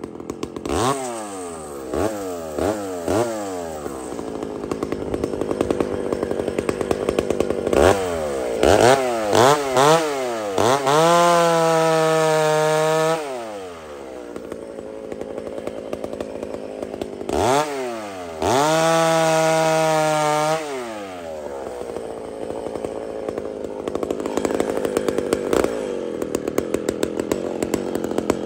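Two-stroke chainsaw idling and being blipped, about four quick revs near the start and more around eight to ten seconds in, and twice held at full throttle for about two seconds, around eleven and nineteen seconds in, dropping back to idle each time.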